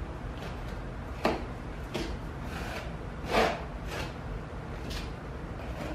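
Small plastic scraper spreading drywall joint compound over a wall patch: a series of short scraping strokes, the loudest about three and a half seconds in, over a steady low hum.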